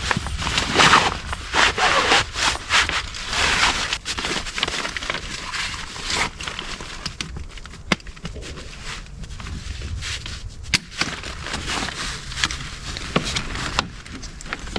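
A folding camp cot being set up by hand: irregular rustling and scraping of its fabric and frame, with sharp clicks as parts are pushed into place, one at about eight seconds in and another near eleven seconds.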